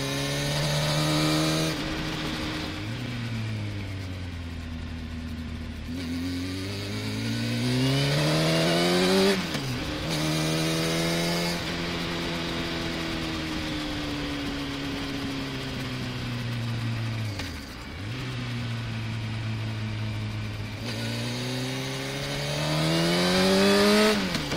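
Sport motorcycle engine and exhaust heard from a camera mounted on the bike. The revs drop about two seconds in, then climb, break sharply at a gear change before halfway, and ease off. They dip briefly a little past halfway, then climb again to another quick shift at the end.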